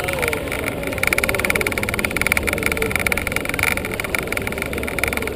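A small engine running steadily with a rapid, even buzz.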